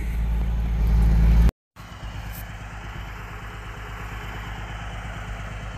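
Log truck's diesel engine idling, a loud steady low hum inside the cab; after a brief break about a second and a half in, a quieter steady engine rumble carries on.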